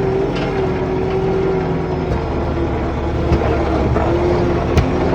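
Skid steer loader's engine running steadily as the machine drives, with a steady hum that wavers slightly in pitch and a sharp knock near the end.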